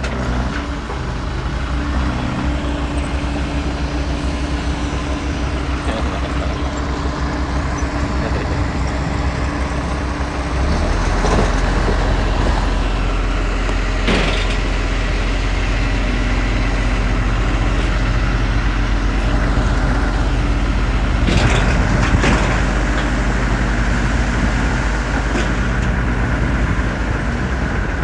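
Heavy diesel machinery engine running steadily, then working harder and louder about eleven seconds in, with a few sharp metallic clanks along the way.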